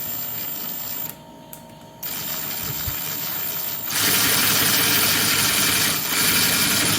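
Power drill driving a machine screw into a doorknob's mounting post, run slowly: a short whir ending about a second in, then after a brief pause a longer run that gets louder about four seconds in. It stops at the end with a low knock.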